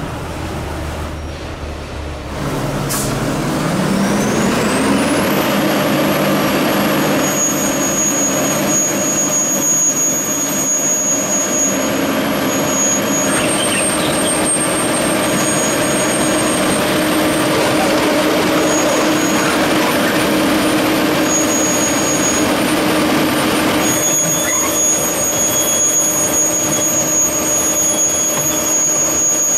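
Track ballast regulator at work levelling ballast. About three seconds in, its engine rises in pitch and grows louder, then runs steadily under load with a high whine over it.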